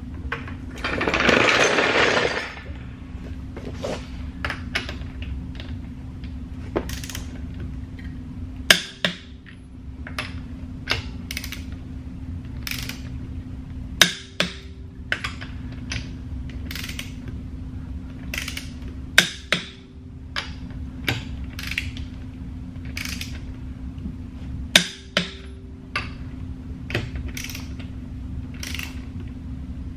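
Click-type torque wrench ratcheting on the lug nuts of a car's front wheel, with a sharp click about every five seconds, five in all, as each nut reaches its set torque. A brief rush of noise about a second in, and a steady low hum throughout.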